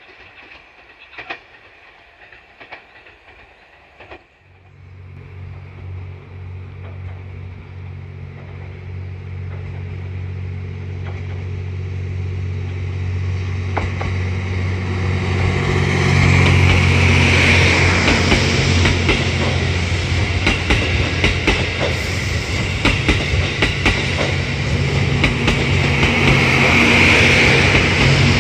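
A train approaching and running past close by. A low steady hum sets in about four seconds in and grows steadily louder, and for the last dozen seconds it is loud, with wheels clattering over the rails.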